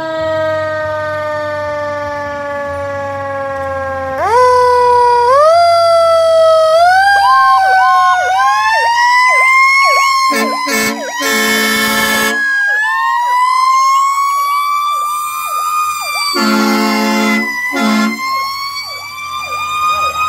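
Fire engine pulling away with its siren on. The tone sags slowly, then climbs in steps into a wail that sweeps up and down with a fast warble over it. It is cut across by blasts of the truck's air horn about halfway through and again a few seconds later. A low engine rumble sits under the siren at first.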